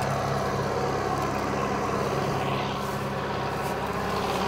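John Deere tractor's diesel engine running steadily under load while it drives a rotary cutter (bush hog) through brush and tall grass.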